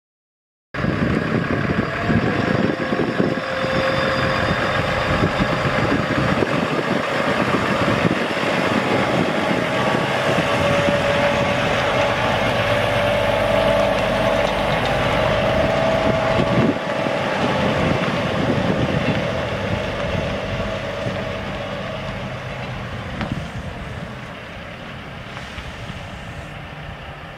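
Semi truck's Cummins ISX 14.9 L six-cylinder turbo diesel running steadily: a heavy rumble with a steady tone riding over it. It starts abruptly just under a second in and fades gradually over the last ten seconds.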